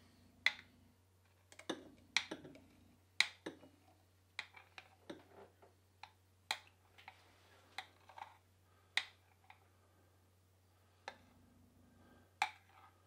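Metal spoon clicking and knocking against a jug as thick blended milkshake is spooned out of it: about twenty short, sharp taps at irregular intervals, mostly between half a second and a second apart.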